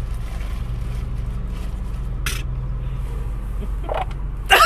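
A steady low rumble, like a running vehicle heard from inside, with a brief swish about two seconds in. A sudden high-pitched squeal breaks in right at the end.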